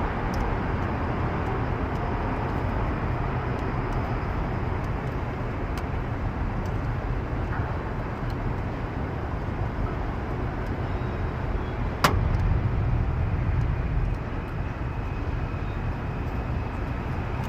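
Steady low rumble of city background noise, like traffic. One sharp click about twelve seconds in, followed by a slightly louder stretch lasting about two seconds.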